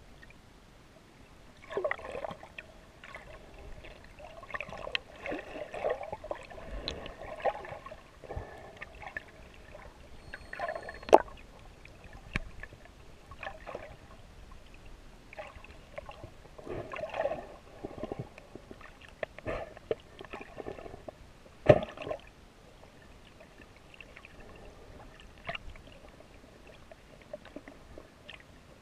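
Water sloshing and gurgling around a snorkeler's GoPro camera in irregular bursts. There are two sharp knocks, one about eleven seconds in and another about ten seconds later.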